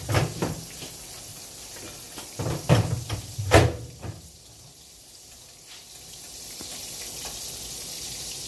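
Several sharp knocks and clunks of kitchen handling in the first few seconds, the loudest about three and a half seconds in, over the steady sizzle of pancake batter frying in a pan, which grows a little louder after the knocks stop.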